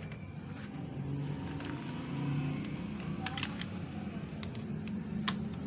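Scattered small plastic clicks and taps as the plastic end cap and gear parts of an HP 36A toner cartridge are handled and pressed into place, a few of them in the second half. A steady low hum runs underneath.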